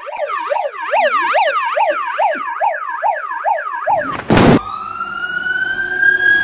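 Siren from a handheld megaphone: a fast yelp sweeping up and down about twice a second, then a short loud blast about four seconds in, followed by a slow rising wail.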